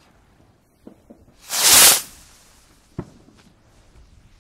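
Volador de Trueno firework rocket launching with a short, loud hissing whoosh about one and a half seconds in. A few faint pops come before it, and a single sharp crack follows about a second later.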